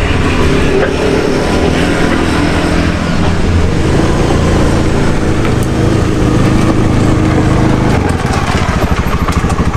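Motorcycle engine running as the bike rides up and pulls in, dropping to idle with a fast, even pulse about eight seconds in.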